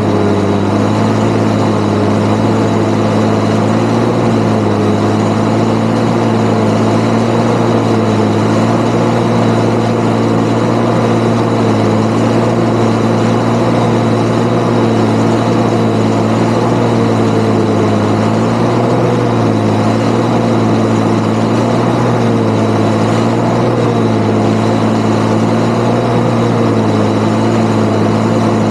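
Valtra 8400 tractor's six-cylinder diesel engine running steadily while pulling a precision chopper through windrowed grass, its pitch wavering slightly, with a thin steady high whine above it.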